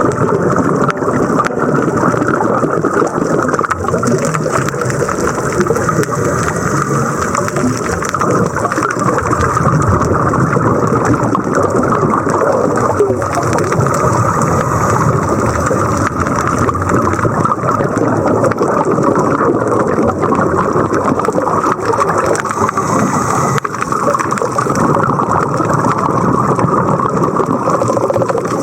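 Steady, loud rushing and rumbling of water, with no breaks or distinct events, as heard by a camera in a waterproof housing during a dive.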